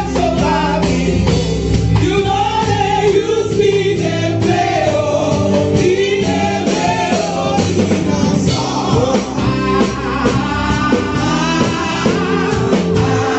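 Live gospel music: a woman sings lead into a microphone, with backing singers and a band accompanying her.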